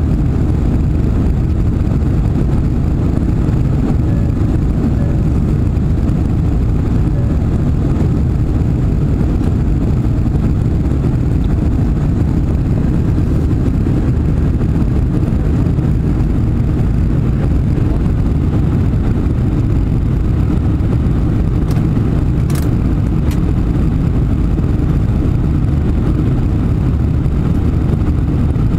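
Steady jet engine and airflow noise inside the passenger cabin of a Boeing 747-400 in the climb after takeoff, with one brief click about three-quarters of the way through.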